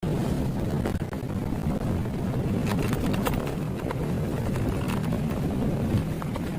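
Steady low vehicle-like rumble with scattered short clicks and knocks at irregular moments.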